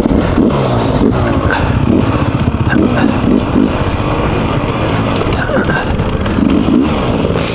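Two-stroke dirt bike engine running and being ridden, its revs rising and falling continuously.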